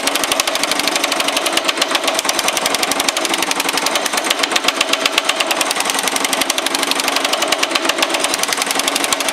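Baileigh MH-19 power hammer pounding sheet metal in a rapid, steady run of blows, gathering (shrinking) the metal.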